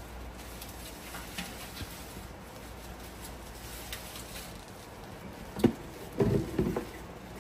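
Water being poured into a blender jar packed with kale, a faint patter, followed about five and a half seconds in by a few sharp knocks and clatter as the jar is handled.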